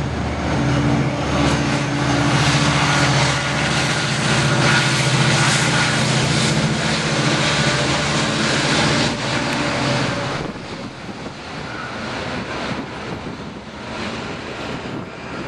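Amtrak F59PHI diesel-electric locomotive, with its EMD 710 diesel engine, passing close by under power, a steady loud engine drone over the clatter of the train. The sound drops off sharply about ten seconds in as the locomotive goes past, leaving a fainter rumble.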